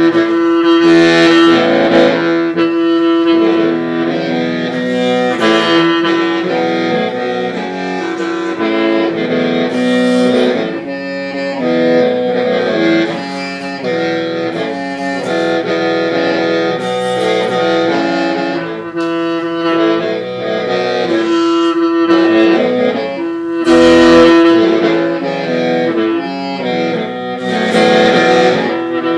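Hmong qeej (lusheng), a bamboo free-reed mouth organ, playing a melody in several notes at once over a steady held drone, the higher notes shifting in phrases with brief dips between them.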